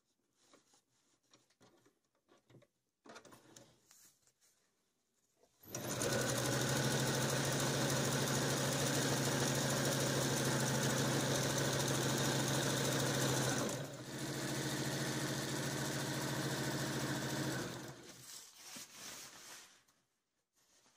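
Toyota domestic electric sewing machine stitching ripstop nylon fabric: a few faint handling sounds, then the machine runs steadily for about eight seconds, pauses briefly, runs again for about four seconds and stops.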